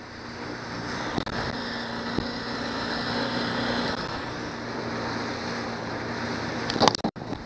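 Johnson 90 hp outboard motor running at speed, with a steady hum under the rush of wind and water as the boat planes. A brief sharp knock comes near the end.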